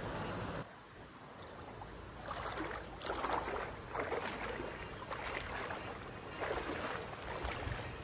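Feet splashing through a shallow stream as a person wades, about six splashes roughly a second apart, over the steady rush of flowing water.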